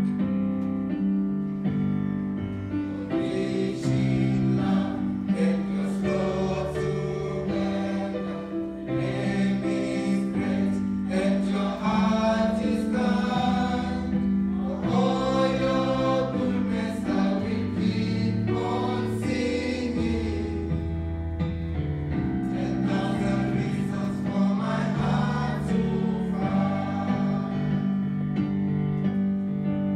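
Background music: a choir singing a gospel song.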